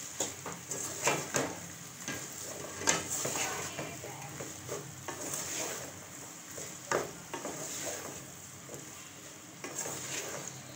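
Wooden spoon stirring sliced taro root (arvi) in hot oil in a metal pot: the slices sizzle while the spoon scrapes and knocks against the pot at irregular moments. The taro is being sautéed in the oil.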